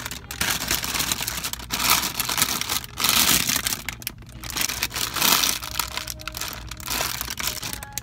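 Clear plastic bags around plush toys crinkling as they are handled right up against the microphone, in irregular rustling bursts, loudest about three and five seconds in.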